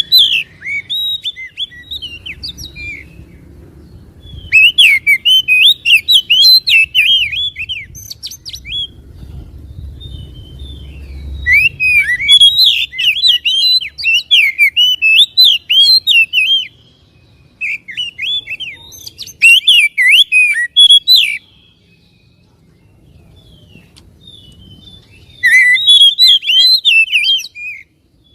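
Oriental magpie-robin singing in loud bouts of rapid, varied whistled phrases. There are about five bouts, each a few seconds long, separated by short pauses.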